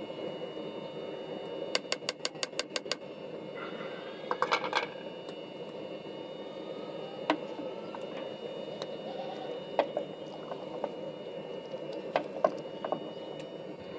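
Spices tapped off a plate into a large metal cooking pot, a quick run of light taps early on. A long wooden ladle then stirs the pot and knocks now and then against its side, over a steady noise of the pot and stove.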